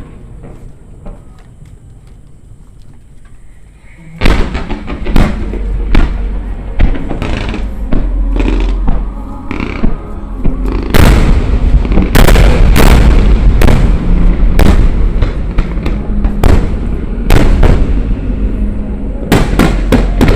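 Large aerial fireworks bursting. Faint distant pops at first, then from about four seconds in a dense barrage of loud booms and crackles over a continuous heavy rumble.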